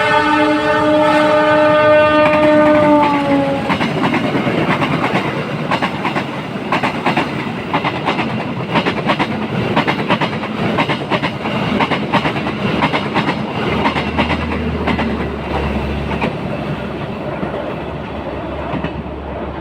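Diesel locomotive horn sounding a loud, held multi-tone chord that bends down in pitch as it passes and stops about three and a half seconds in. The train then rolls by with a dense, rapid clickety-clack of wheels over rail joints.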